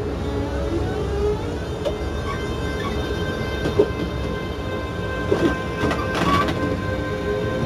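Siemens/EFACEC three-phase asynchronous traction motors of a CP 2300-series electric train whining, with faint tones slowly rising in pitch as the train gathers speed, over the steady rumble of wheels on rail. A few short knocks come in the middle.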